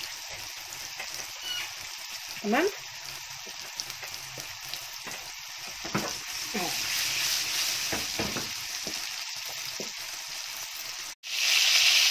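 Flour-coated minced-chicken kofta balls shallow-frying in hot oil in a pan, a steady sizzle as they brown. Near the end, after a brief break, the sizzling is louder.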